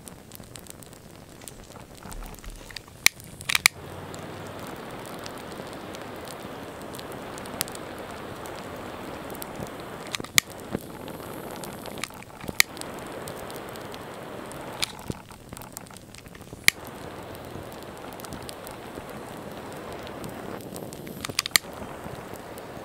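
Flames burning on toy model cars: a steady hiss with sharp crackles and pops, several close together near the end.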